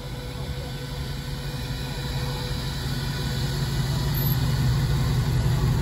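Engine of a 1940s coupe running at low speed as the car rolls up and past, its low steady note growing louder.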